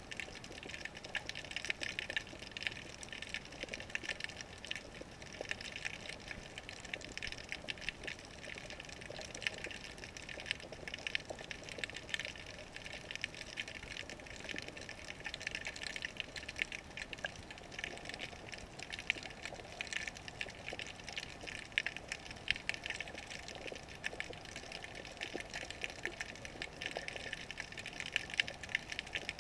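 Underwater sound heard through a GoPro's waterproof housing: a steady muffled water rush with a dense crackle of many small clicks throughout.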